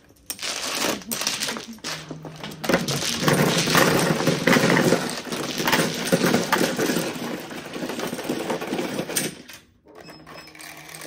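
Mahjong tiles clattering in a dense, loud rattle as a hand's tiles are swept into an automatic mahjong table. The clatter stops near the end, leaving a low steady hum from the table's mechanism.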